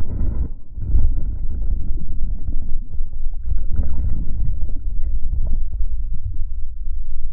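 Muffled low rumbling and gurgling of water moving around a microphone held underwater.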